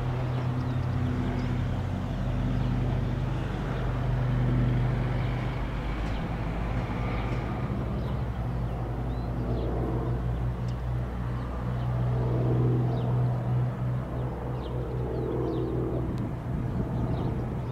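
Grob G115E Tutor light trainer's single piston engine and propeller running in flight overhead, a steady drone that wavers a little partway through.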